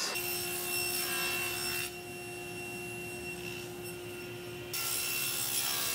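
Table saw running and cutting walnut boards: a steady motor hum with a high whine over it. The sound changes abruptly about two seconds in and again near five seconds.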